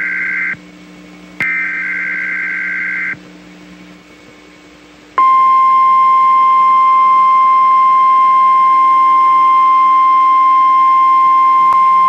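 NOAA Weather Radio required weekly test over the air: the tail of one SAME digital header burst, then a second burst of about a second and a half. After a short gap, the steady 1050 Hz warning alarm tone comes on about five seconds in and holds.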